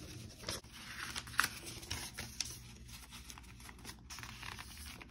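A sheet of paper being folded and creased flat by hand: faint rustling with a few short, sharper crinkles.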